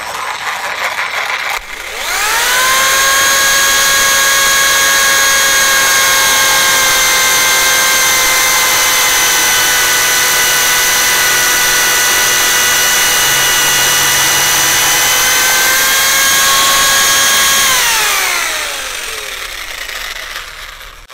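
Parkside PSTK 800 C3 800 W jigsaw sawing through a 5×7 cm wooden batten with pendulum action off. The motor spins up about two seconds in and runs at a steady whine under the blade's sawing noise for about fifteen seconds. Near the end it is released and winds down, its whine falling.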